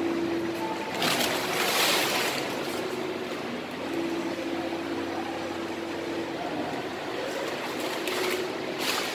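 Flatbed piezo inkjet exposing machine running: a steady hum with a pitched whine that comes and goes. Two louder rushes of hiss, about a second in and near the end.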